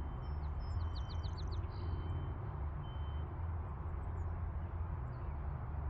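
Outdoor ambience: a steady low rumble, with a small bird giving a quick run of high chirps about a second in.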